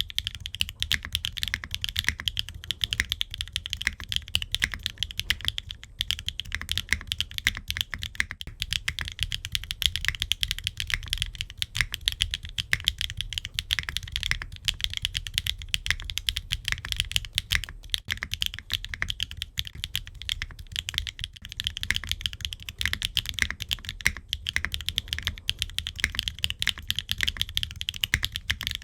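Continuous fast typing on a mechanical keyboard with HMX Aster linear switches, a dense run of keystroke clicks with no pauses. The board is a gasket-mounted aluminium-case 65% build with an aluminium plate, no foam and ABS double-shot Cherry-profile keycaps.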